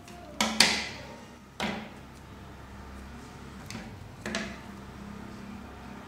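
Four sharp knocks or thumps, each fading quickly: two close together about half a second in, another near the middle of the second second, and a last one a little after four seconds.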